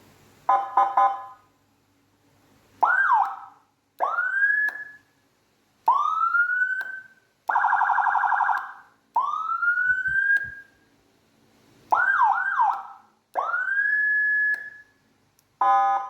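Aftermarket electronic siren with a Whelen tone chip, sounding through a TOA YH 340 speaker, stepping through its tones in short blasts with pauses between: a stuttering chirp about half a second in, several whoops that rise and hold, a steady buzzing horn tone about eight seconds in, and a quick double whoop near twelve seconds.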